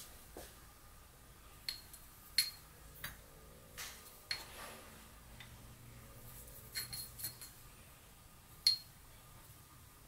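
Crockery clinking lightly: about ten scattered clinks, each with a brief ring, the sharpest near the end.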